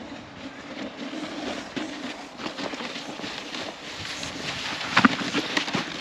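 A sledge sliding fast down a snowy slope, a steady scraping noise of its bottom running over the snow, with a sharp knock about five seconds in.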